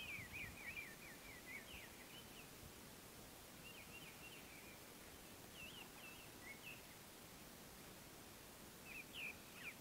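Faint birdsong: a small songbird sings several short phrases of quick, falling chirps, with pauses between them, over a steady low hiss.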